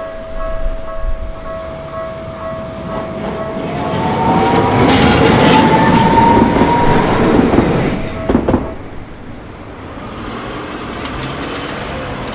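Tokyu Setagaya Line light-rail train passing over a level crossing. Its motor whine rises steadily in pitch as it gathers speed, loudest in the middle, with a sharp wheel clack over the rails about eight and a half seconds in.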